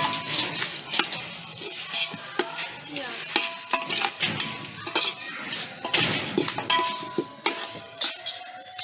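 Metal ladle stirring masala in a large metal pot, scraping and knocking irregularly against the pot, which rings briefly after some knocks, over the sizzle of the masala frying in oil.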